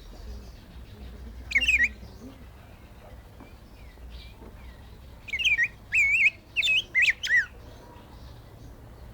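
Black-backed grosbeak (rey del bosque) singing: a short warbled phrase about one and a half seconds in, then a longer phrase of rapid, rich whistled notes swooping up and down, from about five to seven and a half seconds in.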